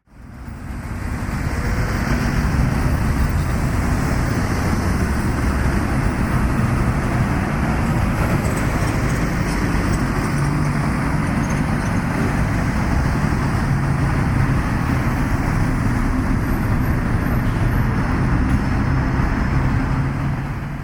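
Motorcycle riding along a road: steady engine drone under loud wind and road noise, fading in over the first couple of seconds and cutting off abruptly at the end.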